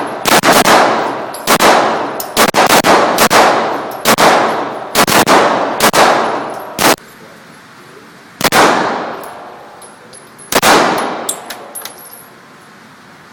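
Gunshots fired one at a time at an uneven pace, some in quick pairs, each trailing off in a long echo. The shots thin out and stop at about eleven seconds.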